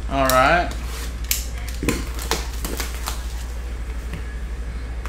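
A short wavering vocal hum, then several sharp taps and crinkles from a shrink-wrapped cardboard trading-card box being handled and turned over. A steady low electrical hum runs underneath.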